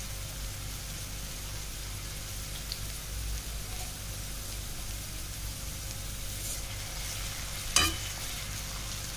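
Finely chopped onion frying in hot oil in a metal kadhai, with a steady, even sizzle. Near the end a steel spatula strikes and scrapes the pan once as the onion is stirred.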